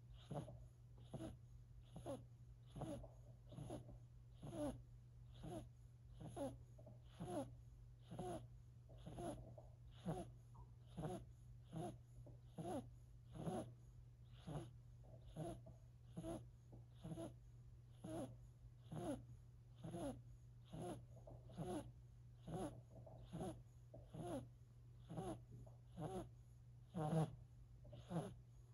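Four-month-old silver Siberian kitten snoring in its sleep: short, faint, even snores a little faster than one a second, one louder near the end, over a steady low hum.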